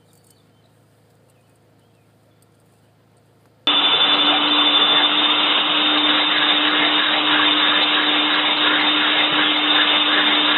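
Vacuum cleaner running at full power: a loud, steady rush of air with a low hum and a high whine, cutting in abruptly about four seconds in after a stretch of near-quiet.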